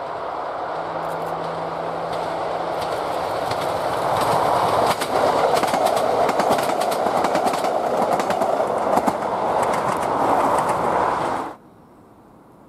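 ScotRail diesel multiple unit train approaching and passing close by: the diesel engine is running and the wheels click rhythmically over the rail joints, growing louder over the first few seconds. The sound cuts off suddenly near the end.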